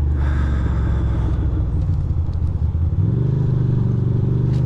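2006 Ducati Monster 620's air-cooled L-twin engine heard from the rider's seat: running low and uneven through a left turn, then pulling away from about three seconds in with a slowly rising pitch as it accelerates. A short hiss sounds in the first second.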